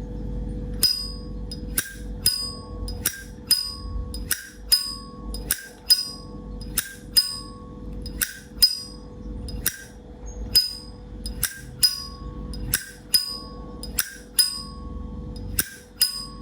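A 1974 Zippo lighter's lid flicked open and snapped shut over and over, about two clicks a second. Many of the clicks carry a short, bright metallic ring, which is the 'sound' that Zippo collectors prize.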